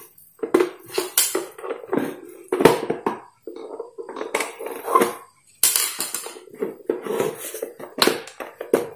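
Plastic casing of a Philips blender's motor base being handled and pried apart, partly with a screwdriver: irregular clicks, knocks and scraping of hard plastic.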